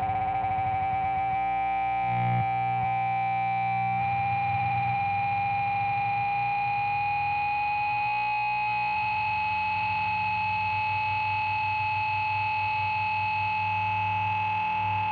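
Amplifier feedback: a steady, sustained howling tone that slowly creeps up in pitch, over a low buzzing hum from the amp.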